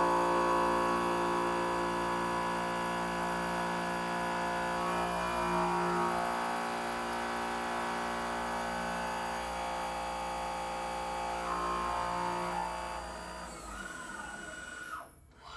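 ProtoTRAK RMX CNC bed mill cutting a slot with an end mill: a steady machining whine made of several held tones over a noisy background. Near the end the pitch falls as the cut finishes, and the sound stops abruptly.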